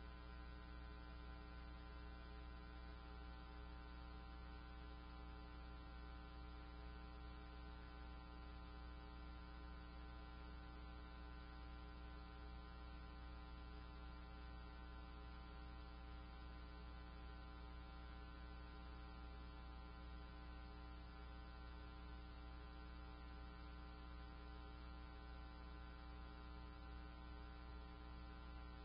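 Faint, steady electrical hum made of many fixed tones, strongest at the low end and unchanging throughout.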